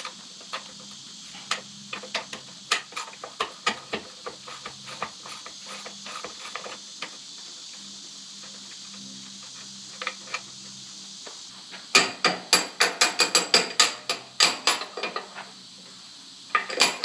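Metal-on-metal clicking and tapping at a Bobcat S250 skid steer's lift-arm pivot pin and its retaining bolt. Scattered light clicks give way, about twelve seconds in, to a couple of seconds of fast, loud, sharp taps, with a few more near the end.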